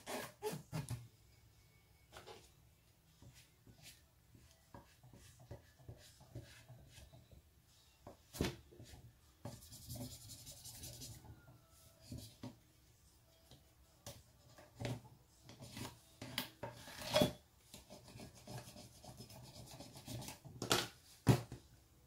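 Fingers and a plastic squeegee rubbing adhesive vinyl down onto a glitter-coated stainless tumbler, with scattered light taps and knocks as the cup is turned on a cutting mat. A longer scraping stretch comes about ten seconds in, and the loudest knocks come near the end.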